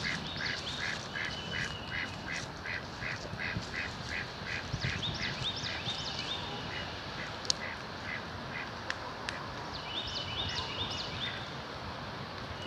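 Ducks quacking in a steady run of about three calls a second that stops about halfway through, with small birds chirping over it.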